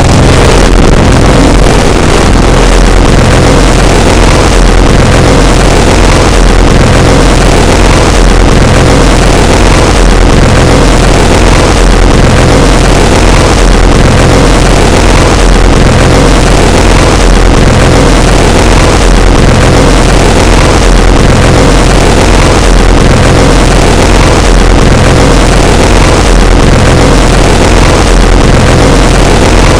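Electric zap sound effect looped over and over: a very loud, continuous crackling buzz with a deep hum under it, repeating about every two seconds.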